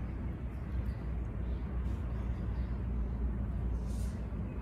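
Steady low outdoor background rumble, with no clear single event in it.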